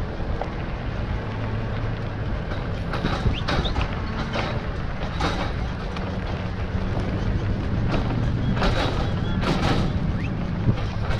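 Vehicle engine idling steadily, under a cattle drive of horseback riders and cattle passing along the road. About half a dozen brief sharp noises stand out, a second or more apart, louder around the middle and near the end.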